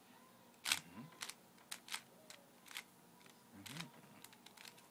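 Plastic Rubik's cube layers being turned by hand, giving sharp irregular clicks and clacks, the loudest about a second in.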